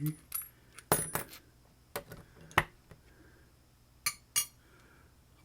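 Small metal tools from an iFixit driver kit clinking and clicking as they are handled. There are about six sharp clicks: a pair about a second in, single ones at about two and two and a half seconds, and another pair about four seconds in.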